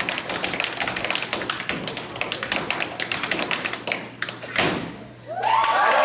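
Two pairs of tap shoes tapping out a fast a cappella rhythm on a wooden stage floor, with no music, ending in a single heavier stamp about four and a half seconds in. After a brief pause the audience starts whooping and cheering near the end.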